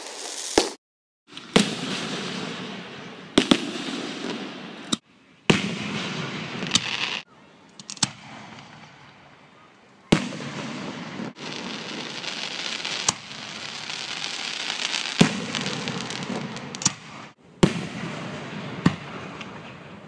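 Aerial firework shells bursting overhead: about a dozen sharp bangs at irregular intervals, a second or a few seconds apart, with a noisy wash of sound between them.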